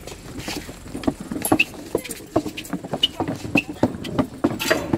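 Footsteps on weathered wooden planks: a steady run of hollow knocks, about three to four a second, with a few short high squeaks.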